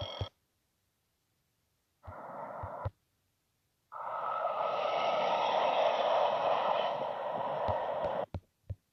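Trackside train video played back on a phone: a steady rushing noise as a train approaches, lasting about four seconds and cutting off abruptly. It comes after a shorter burst, with silence between them. A few clicks follow near the end.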